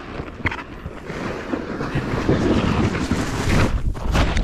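Rushing, scraping noise of a small board sliding fast down a snowy slope, with wind buffeting the microphone. It grows louder as it goes, with a sharp knock near the end.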